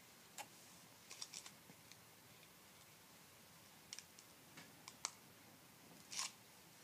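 Near silence: room tone with a scattering of faint, short clicks and ticks.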